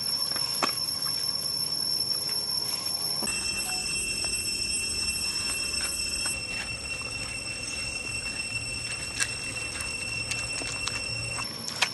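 Steady high-pitched insect drone of several sustained tones at once, whose mix changes about three seconds in, with a few soft clicks and rustles from hands working the food.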